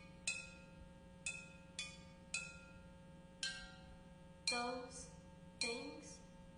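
Terracotta flowerpots struck one at a time with thin sticks: seven separate hits, each a bright pitched clink that rings on briefly, unevenly spaced about half a second to a second apart.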